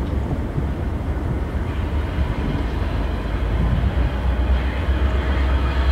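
Steady low rumble with a faint hiss above it.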